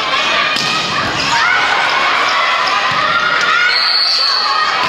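Volleyball rally in a gymnasium hall: the ball being struck and thudding, with players' shouts and calls echoing around it. A short high steady tone sounds near the end.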